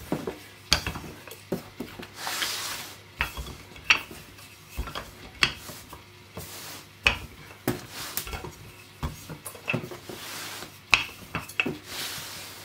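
Wooden rolling pin rolling out a slab of bread dough on a silicone mat over a stainless-steel benchtop: irregular sharp knocks and clatter against the steel, with several longer rubbing sweeps as the pin passes over the dough.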